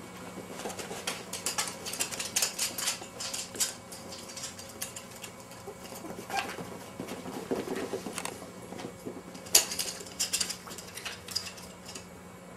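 Poodle puppies' claws clicking and pattering on a hardwood floor and woven mat as they scuffle in play: quick, irregular taps, busiest in the first few seconds, with one sharp loudest click about three-quarters through.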